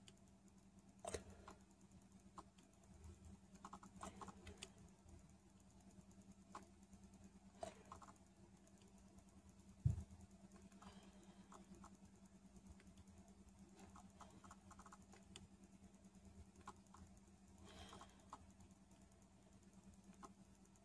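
Near silence with faint scattered clicks and ticks from a Sony A7R III with a Sigma 35mm f/1.4 Art lens on a Metabones V adapter as it is operated and focuses in continuous autofocus, one louder click about ten seconds in, over a low steady hum.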